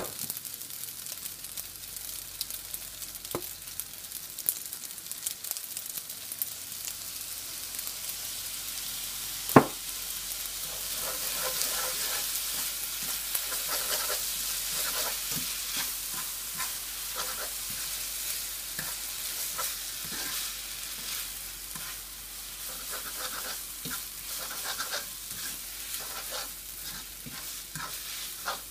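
Noodles sizzling steadily in a hot nonstick frying pan. A sharp knock comes about ten seconds in, and then a spatula stirs and tosses the noodles with repeated short scraping strokes against the pan.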